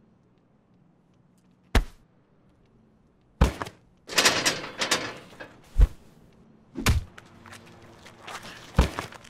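Scuffle in which a person is shoved against a door: a series of about five hard thuds and slams, spaced a second or two apart, with a stretch of rustling struggle between them.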